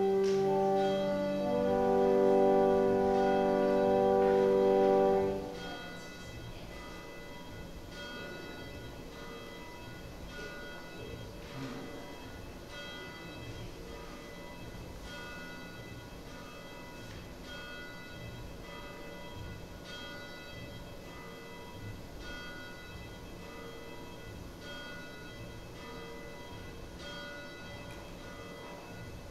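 Church organ holding a sustained chord that stops about five and a half seconds in. After that, bells ring softly in a steady, repeating pattern.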